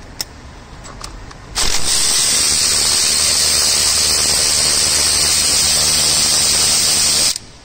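Snap-on power ratchet running steadily for about six seconds while loosening an intake manifold bolt. It is a high rushing whir with a low hum beneath, starting about a second and a half in and cutting off sharply near the end.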